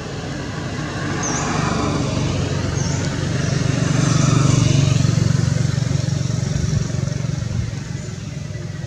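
A motor vehicle passing by: a low engine hum that grows louder to a peak about halfway through, then fades away.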